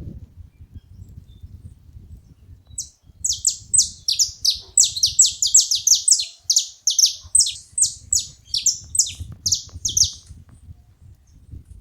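Saffron finches calling together: a fast run of sharp, falling high notes, several a second, starting about three seconds in and stopping near the end. A faint low rumble lies underneath.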